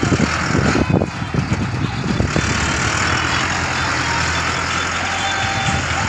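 Mahindra Arjun Novo 605 tractor's diesel engine running under load as it works its front loader in soil, with some knocking in the first second and a steady hiss joining in about two seconds in.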